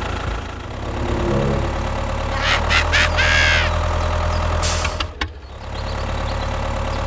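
A mini tractor's engine running steadily with a low hum. About three seconds in there is a short chirp, and near five seconds a brief hiss, with a momentary drop in the sound just after.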